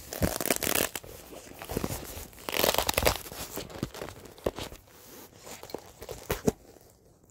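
Packaging being torn and crinkled by hand as a stubborn box is worked open. It comes as bursts of ripping and rustling, loudest in the first half, then thins to scattered crackles and clicks.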